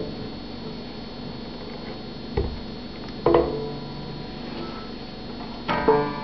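Banjo being handled as a strap is fitted around its rim: a dull knock a little over two seconds in, and the open strings ringing briefly twice, about three seconds in and near the end.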